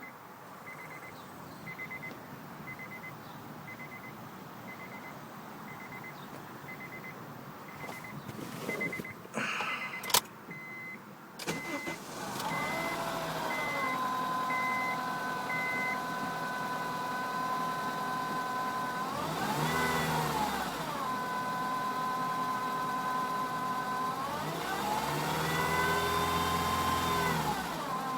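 A dashboard chime beeps about once a second, then an Acura RSX's four-cylinder engine is cranked and starts about eleven seconds in. At idle it carries a steady high whine, two or three tones, whose pitch rises and falls with the engine when it is revved twice. The owner's first guess for the whine is the power steering pump.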